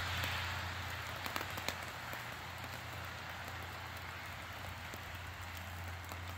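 Tube sparkler burning: a steady fizzing hiss with a few sharp crackles of burning metal sparks, easing off somewhat over the first two seconds. A steady low hum runs underneath.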